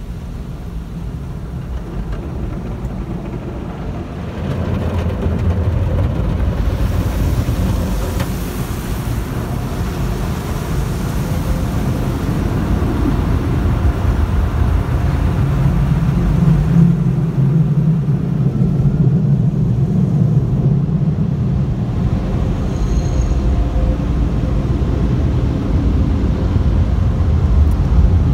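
Automatic tunnel car wash heard from inside the car: a loud, steady rush of water and machinery, with a brighter hiss of spray from about six to twelve seconds in and a deeper steady hum from the middle on.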